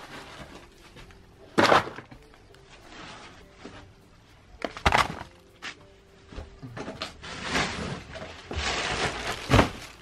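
Wood chips tipped into a fabric pop-up garden bag, with the bag handled around them. There are sharp thumps about two and five seconds in, then rustling and clattering of the chips that grows busier near the end, with one more hard knock.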